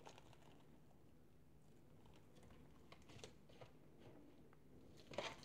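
Near silence with a few faint clicks and taps as a thin etched metal model-kit sheet is handled, the loudest tap near the end.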